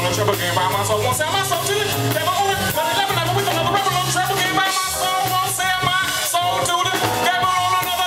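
Live jazz band playing: a male singer's voice over electric bass, drums and keyboards, with a steady low bass line underneath.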